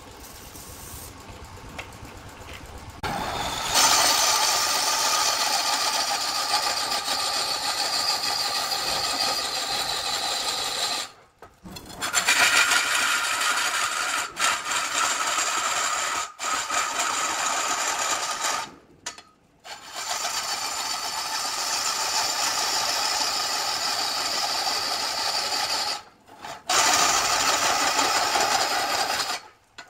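Large wood lathe with a turning tool cutting and scraping the spinning wooden blank: a steady, loud rasping hiss that starts about three seconds in, after a quieter steady hum of the lathe running. The rasping breaks off abruptly several times.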